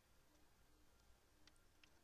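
Near silence: low room tone with two faint computer mouse clicks in the second half.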